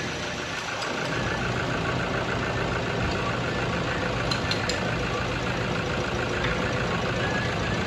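Toyota 1KD-FTV 3.0-litre four-cylinder turbodiesel idling steadily.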